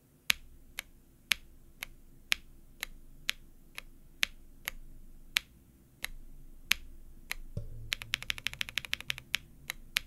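A mechanical keyboard fitted with BBN Tactile switches, nylon top housing and polycarbonate bottom housing. For about seven seconds a single key is pressed and released about once a second, a sharp bottom-out click alternating with a softer upstroke click, in a higher-pitched 'thack'. After a low thump, fast typing runs through the last couple of seconds.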